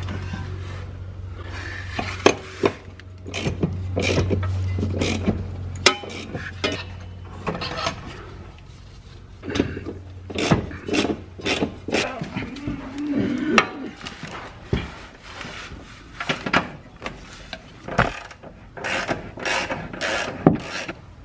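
Hand-tool work on the underside of a car: a ratchet wrench clicking and metal tools knocking as the drive unit's bolts and fittings are worked loose, in irregular clicks and clanks. A steady low hum runs underneath and stops about six seconds in.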